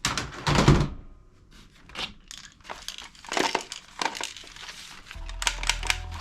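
Plastic toy guns and their packaging being handled: a run of short crinkling and clacking noises. About five seconds in, a steady low hum with held electronic tones starts.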